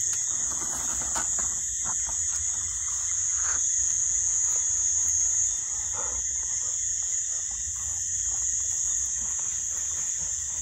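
Steady insect chorus: a continuous high-pitched trill that does not break, with faint scattered clicks lower down.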